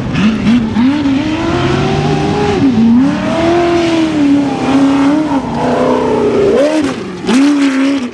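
Tube-frame off-road race buggy's engine revving hard, its pitch rising and falling over and over as the throttle is worked, with a brief dip about seven seconds in before it revs up again.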